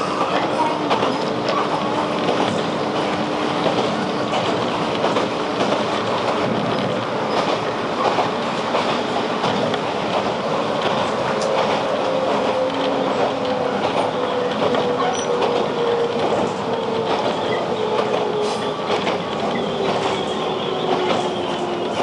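Electric commuter train running along the track, heard from inside the front of the car: steady wheel-and-rail running noise, with a tone that slowly falls in pitch over the second half.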